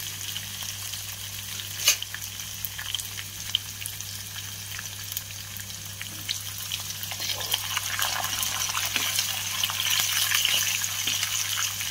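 Green chillies, dried red chillies and dals frying in hot oil in a kadai for a tadka (tempering), sizzling with scattered pops and crackles and one sharp pop about two seconds in. From about seven seconds a spoon stirs the pan and the sizzle grows louder.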